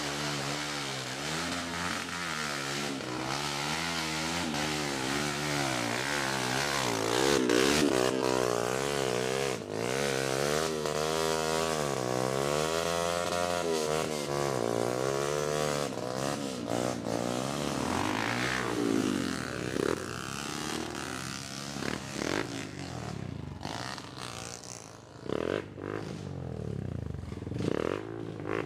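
Trail motorcycle engines revving through mud, the engine pitch rising and falling repeatedly as the throttle is worked. The engine sound breaks up and drops somewhat over the last few seconds.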